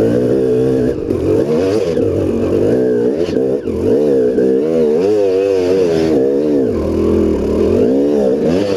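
KTM 250 EXC two-stroke single-cylinder dirt bike engine revving up and down over and over under throttle while climbing a muddy trail.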